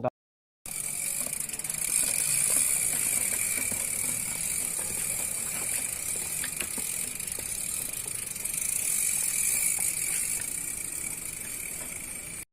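Thrill Ricochet T160 mountain bike being ridden, its Jurassic Metrix rear freehub buzzing steadily while coasting, over a steady hiss and light rattles. It starts about half a second in.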